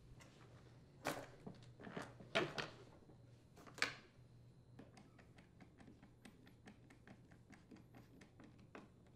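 Hard plastic blower housing knocking a few times against the backpack frame as it is set in place, then a run of quick, light clicks as screws are driven into the support with a screwdriver.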